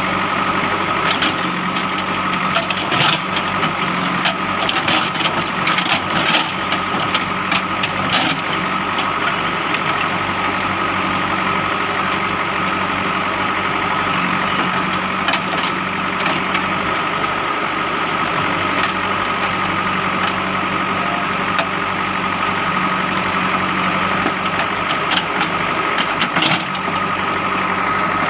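Diesel engine of a JCB 3DX backhoe loader running steadily, with a steady high whine over it. There is scattered short clatter during the first several seconds and again near the end.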